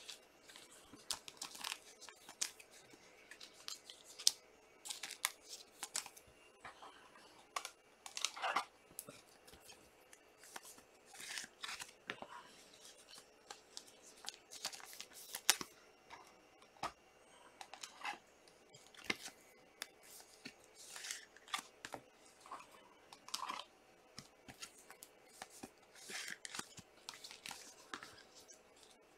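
Trading cards being handled and shuffled by hand: quiet, irregular slides, flicks and clicks of glossy chrome card stock and plastic card holders.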